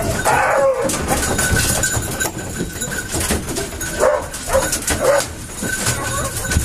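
Griffon Vendéen basset hounds yelping and whining in their metal van compartments, eager to be let out, with several sharp yelps near the start and three more about four to five seconds in. The metal compartment doors rattle as they are opened.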